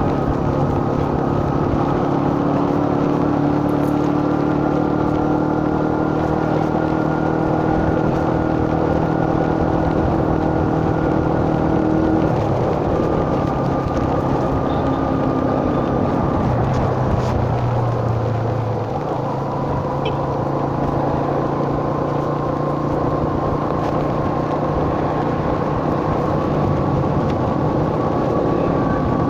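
Motorcycle engine running while riding along a road, with wind and road noise. The engine note shifts about twelve seconds in and again around seventeen seconds, as with a change of speed or gear.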